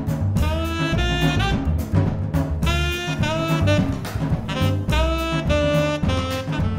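Jazz quartet playing: a tenor saxophone plays the melody in a run of short and held notes over piano, bass and drum kit.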